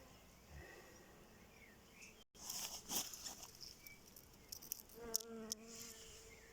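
Outdoor nature ambience with insects chirping and buzzing. About two seconds in the sound cuts briefly and comes back louder with a high hiss, scattered clicks and short chirps, and about five seconds in a drawn-out animal call sounds for about a second.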